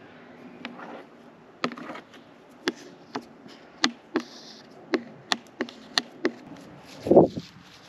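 A series of about a dozen sharp, irregularly spaced taps or clicks, with one louder, duller thump near the end.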